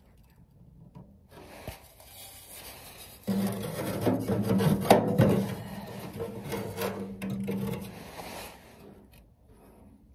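Metal chimney of an Eltex kerosene greenhouse heater scraping and knocking as it is lowered and seated over the lit burner, with the loudest scraping from about three seconds in to about eight and a sharp knock near the middle.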